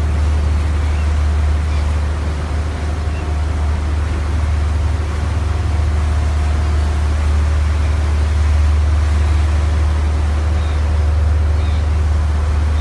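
Motorboat engine running steadily at cruising speed, a constant low drone, over the rush of churning wake water.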